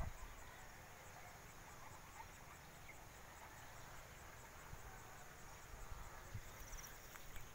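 Faint insects chirping, a steady high-pitched pulsing that runs on evenly, with a short high trill near the end. Low rumbles of wind on the microphone now and then.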